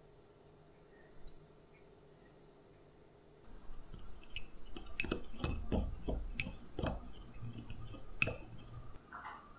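A small wire whisk beating egg yolks in a ceramic bowl, clicking and clinking against the bowl's sides. It starts about three and a half seconds in, with a few sharper clinks standing out.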